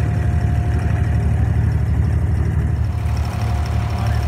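Diesel engine of an abra, a wooden water taxi, running steadily under way, heard from on board as a low drone with a faint steady whine above it.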